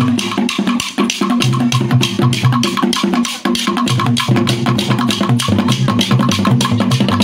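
Music for a Kalabari masquerade display: rapid, dense drumming and percussion with sharp clicking strikes, over a repeating line of low pitched notes that step up and down.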